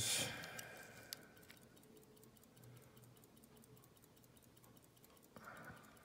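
Steel digital calipers sliding their jaws closed onto a padlock shackle: a soft scrape fading over the first second, a light click about a second in, and a brief scrape near the end. Faint, even ticking runs underneath.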